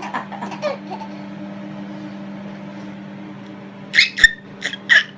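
A child giggling in a quick run of short bursts about four seconds in, over a steady low hum.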